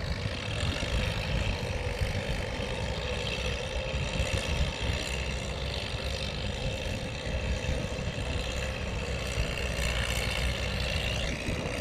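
Diesel engines of two old Fiat tractors running steadily under load while they pull rotary tillers through wet paddy soil.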